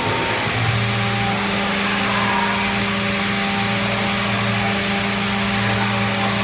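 CNC drilling machine running: a steady motor hum over a loud hiss, settling into an even pitch under a second in.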